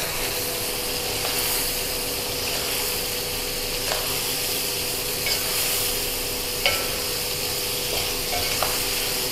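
Salted fish and tomato sambal sizzling steadily in a stainless steel wok while a metal spatula stirs it, with a few light clinks and scrapes of the spatula against the pan.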